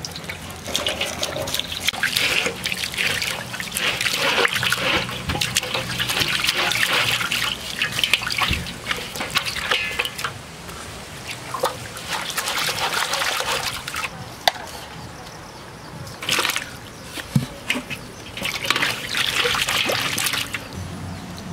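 Water sloshing and splashing in a metal basin as hands scrub and lift water snakes with a plastic scrubber. It comes in uneven bursts with short pauses and a few sharp clicks.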